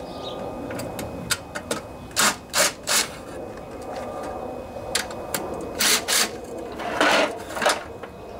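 Quarter-inch socket ratchet loosening the small bolts that hold the recoil starter housing: short bursts of ratchet clicking, three in quick succession about two seconds in, then several more in the second half.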